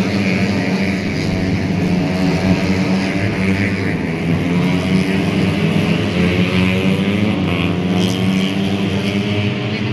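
Four-stroke racing motorcycle engines running and revving, a continuous drone that rises and falls in pitch.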